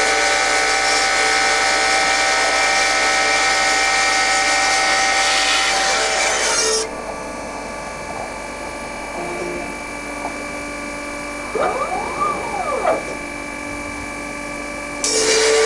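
MEP Shark 332 NC evo automatic bandsaw cutting through wood: a steady whine with a hiss of cutting. About seven seconds in, the cutting hiss stops and the saw runs on with steady tones, with a brief whine that rises and falls around twelve seconds. Near the end the cutting hiss starts again as the next cut begins.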